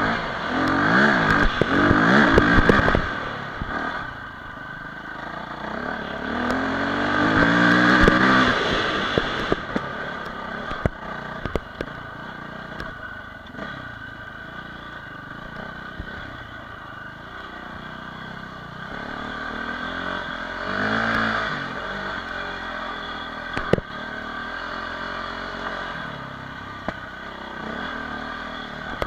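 Off-road motorcycle engine revving up and falling back repeatedly as the bike is ridden hard over a dirt track, with the hardest revs near the start, about eight seconds in and about twenty-one seconds in. Sharp clatters and knocks from the bike over rough ground run through it.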